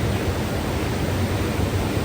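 Mountain river rushing steadily over rocks, an even, unbroken roar of water.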